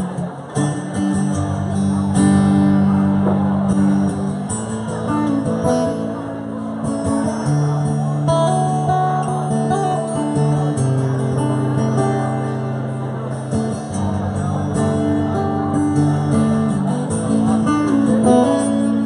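Live band playing an instrumental break, acoustic guitar strummed over held low notes and a steady beat, with no singing.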